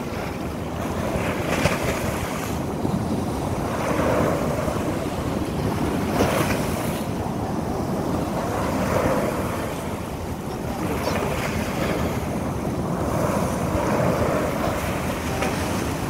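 Small sea waves washing up onto a sandy beach, the surf swelling and easing every two to three seconds.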